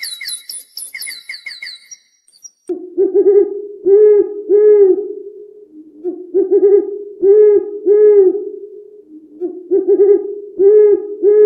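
High, rapid chirping bird calls for the first two seconds, then a low hooting call repeated in three phrases of a few hoots each.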